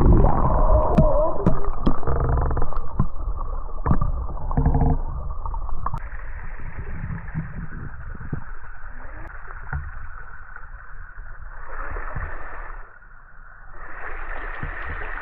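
Flowing spring water heard with the microphone underwater: a muffled gurgling and rushing, with scattered knocks and bumps in the first few seconds.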